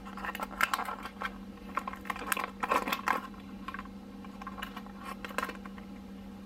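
Clear plastic clamshell packaging crackling and clicking as a Lew's baitcasting reel is worked out of it and handled: irregular small clicks, crinkles and rattles, thinning out near the end, over a steady low hum.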